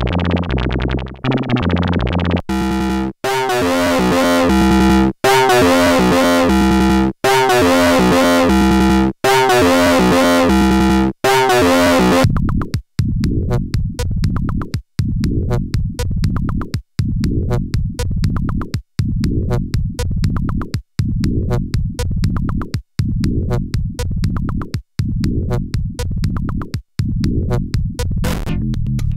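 Experimental electronic music on synthesizers: stepped synth sequences in blocks of about two seconds, broken by brief dropouts. A little before the halfway point it switches to a lower, buzzier pulsing pattern of quick repeated notes, still cut off every two seconds or so.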